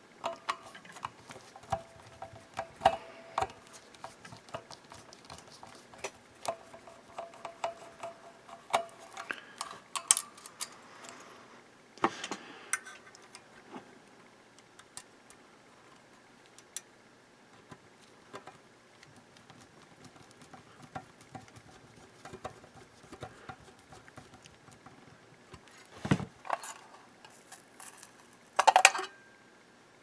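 Small metal clicks, scrapes and clinks of a screwdriver working small screws on a microwave magnetron's sheet-metal mounting bracket, busiest in the first dozen seconds. A few louder knocks come about halfway and near the end as parts are handled.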